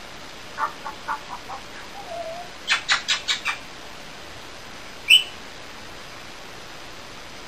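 African grey parrot vocalising. First a quick run of about five short soft notes, then a low note, then about five sharp clicks in rapid succession, and a single high chirp about two seconds later.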